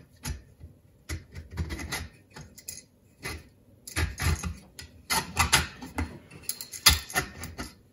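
Irregular clicking and clattering of metal threaded rods and nuts against a 3D-printed plastic motor plate as the plate is fitted down over the rods of a home-built variable capacitor, with one sharper knock about seven seconds in.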